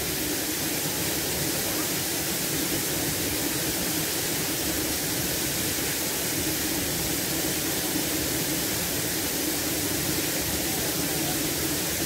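Waterfall cascading over rock into a pool: a steady, unbroken rush of falling water.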